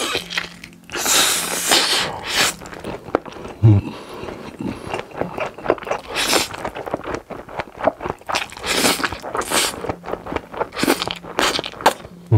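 Close-miked mukbang eating: loud, repeated slurps of a mouthful of spaghetti with wet chewing and smacking between them. A low thud comes a little under four seconds in.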